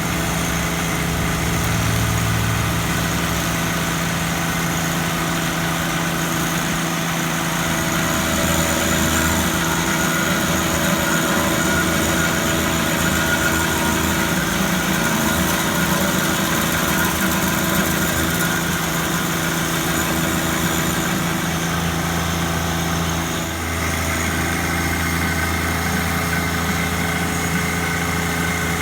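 An engine running steadily at an even speed, its note shifting slightly about 23 seconds in.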